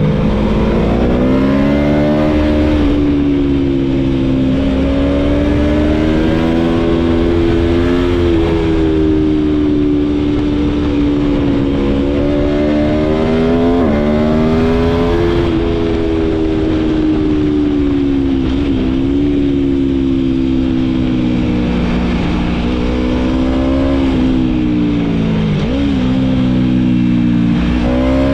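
Aprilia Tuono V4's V4 engine heard onboard under way, its note rising and falling with throttle, with brief sharp dips about two-thirds of the way through and again near the end. Low wind rush underneath.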